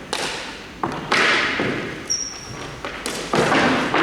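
Sharp thuds echoing in a large hall: two small knocks, then a loud one about a second in and another loud one some two seconds later, each ringing and dying away over about a second.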